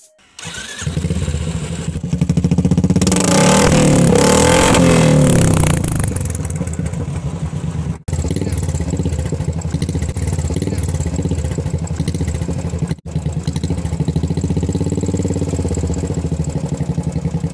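Royal Enfield Bullet Classic's single-cylinder engine started up after an oil change: it is revved for a few seconds, then settles to a steady idle.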